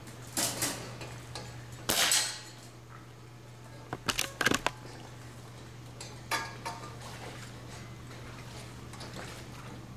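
Several sharp metallic clanks and knocks, a quick cluster of them about four seconds in, over a steady low hum.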